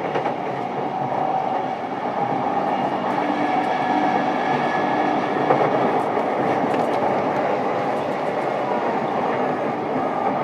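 JR East E233-series electric commuter train running on the line, heard from inside a motor car: a steady rumble of wheels on rail with a few faint steady humming tones from the traction equipment and occasional light clicks.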